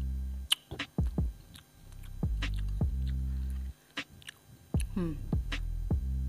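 Chewing and small mouth clicks while eating chewy baso aci (tapioca meatballs), over a low electrical hum that cuts in and out.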